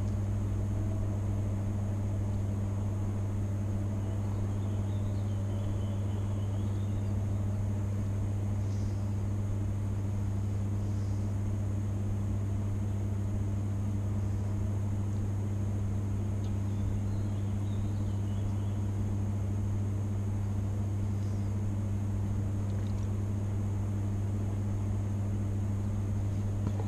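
Steady low hum with a faint high whine above it.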